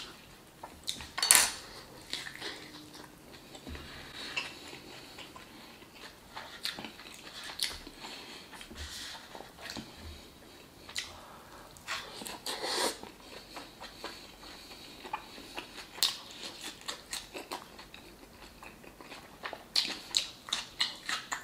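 Close-up eating sounds: birria tacos dipped in consommé and chewed, with scattered clicks and taps from the foam cup and food containers. There is a sharp click about a second in and a quick run of clicks near the end.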